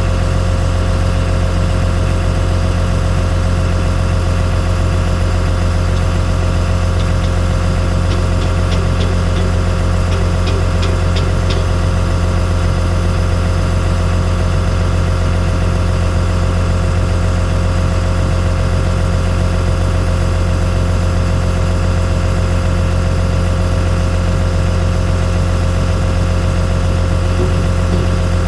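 Cat 315C L excavator's diesel engine idling steadily, heard from inside the cab: a deep, even hum with a steady whine above it.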